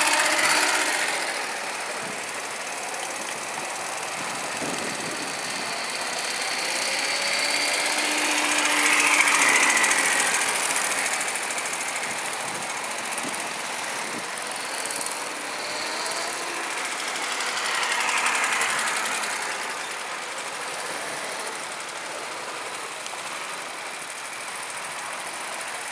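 Go-kart engines running as karts lap the track, with pitch rising and falling as they accelerate and lift. The sound swells twice, about nine and eighteen seconds in, as karts pass close by.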